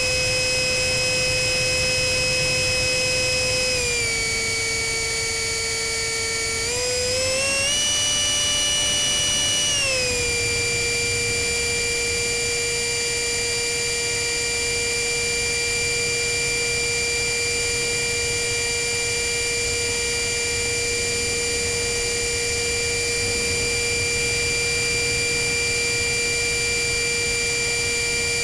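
Whine of a GWS 64 mm electric ducted fan driven by a Cyclone Power CP400 brushless motor, running in flight. Its pitch dips about four seconds in, climbs higher a few seconds later, then settles back to a steady whine as the fan speed changes, with a low rush of wind underneath.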